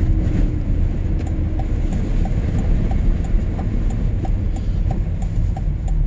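Car cabin noise while driving: a steady low rumble of engine and tyres on the road, with a light, regular ticking about three times a second.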